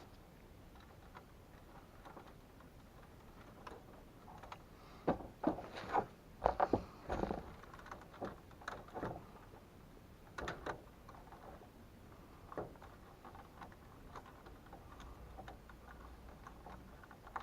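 Scattered clicks and knocks of hands and tools working on furnace wiring, with a cluster of louder knocks in the middle and another about ten seconds in.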